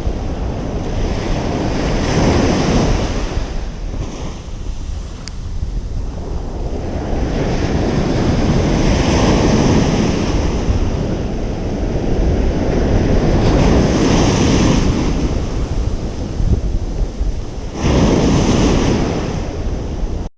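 Ocean surf breaking on a beach: four waves surge in and wash back over about twenty seconds. A steady low rumble of wind on the microphone runs under them.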